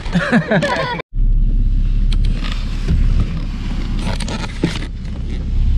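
Car cabin noise while driving: a steady low drone of engine and road rumble, with a few faint clicks and rattles.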